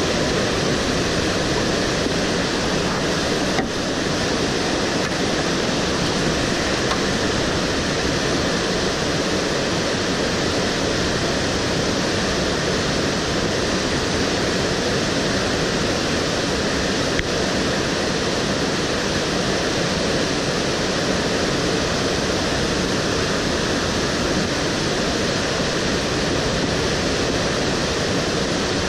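River rapids rushing over boulders: a steady, loud rush of water.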